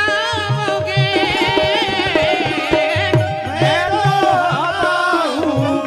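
Devotional ghazal singing: a voice holds long, heavily ornamented notes that waver and glide, over tabla strokes and a steady held drone note.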